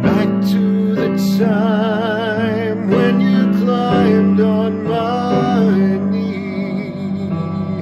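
Slow song: a man singing long held notes with vibrato over a guitar accompaniment.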